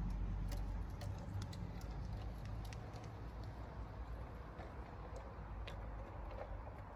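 Garden-railway model train running away along the track: a low rumble that slowly fades as it recedes, with scattered light clicks.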